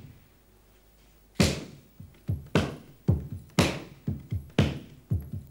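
A hand-played drum keeps a rhythm after a quiet start, beginning about a second and a half in: strong strokes about twice a second with lighter strokes between.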